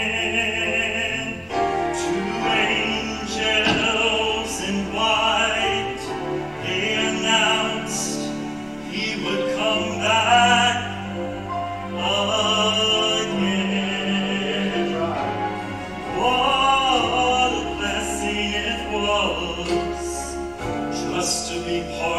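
A man singing solo into a microphone over amplified musical accompaniment with sustained bass notes that change every few seconds.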